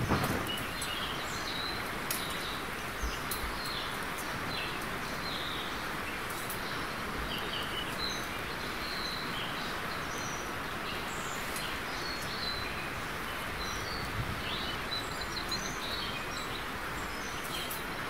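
Outdoor ambience: a steady hiss with small birds chirping now and then.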